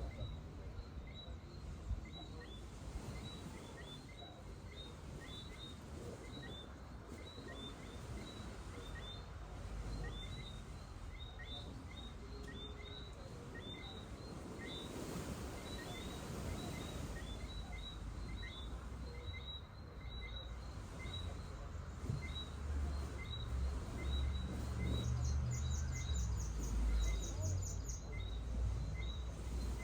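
Evening chorus of many small animals giving short, high chirps over and over, overlapping without pause, over a steady hiss of shoreline ambience. A low rumble swells up about two-thirds of the way through, and a quick series of higher ticks comes in near the end.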